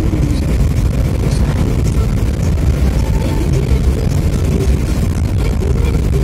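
Steady low road and engine rumble of a Mini Cooper being driven, heard inside the car's cabin.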